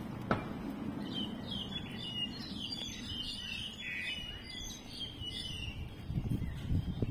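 Small birds chirping, a quick run of short high notes for a few seconds. There is a single sharp click just after the start, and a low gusty rumble near the end.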